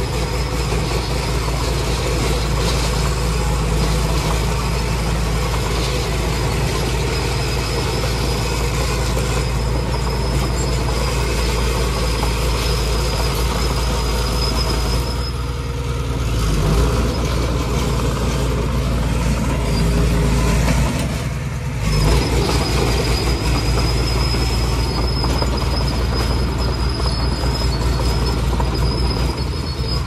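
Small crawler bulldozer's diesel engine running steadily under load as the blade pushes dirt and brush, with a thin high whine over it that drops out for several seconds midway.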